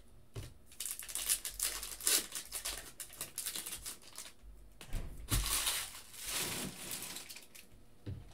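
Foil trading-card pack wrapper crinkling and rustling in irregular bursts as it is torn open and handled. There is a soft thump about five seconds in and another near the end.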